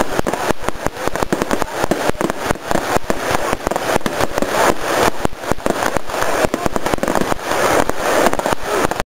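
Aerial fireworks bursting overhead: a dense, irregular crackle of many rapid pops and bangs, with no let-up.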